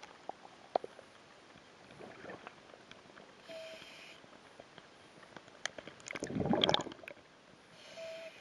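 Lake water sloshing and splashing around a camera held at the surface, with scattered small clicks and a louder gurgling splash about six seconds in as the camera dips through the waterline.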